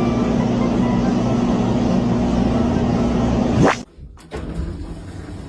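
A steady mechanical hum, like a vehicle running, with a fast rising sweep about three and a half seconds in, then an abrupt cut to a quieter, different sound with faint clicks.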